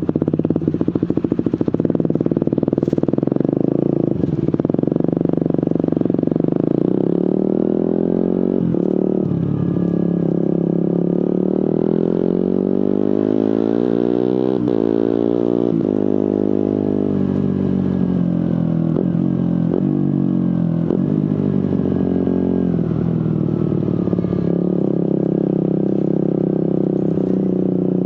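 Suzuki GSX-R150's single-cylinder engine through an aftermarket Prospeed exhaust, riding through the gears. The revs climb steadily to a peak about halfway, then drop away with a quick run of brief breaks in the note at the gear changes, the quickshifter/autoblipper cutting and blipping the engine.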